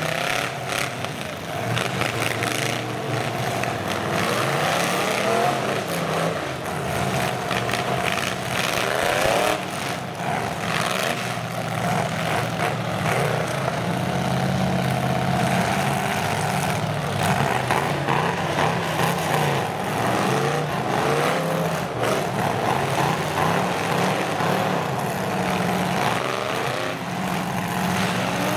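Several demolition-derby pickup trucks' engines revving hard and repeatedly through open exhaust stacks sticking up from their hoods, the pitch rising and falling as they push against each other and spin their tyres. A few sharp knocks of impact come through.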